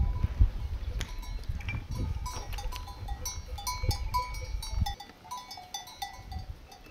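Livestock bells clinking irregularly at several different pitches. A low rumble sits under them and drops away about five seconds in.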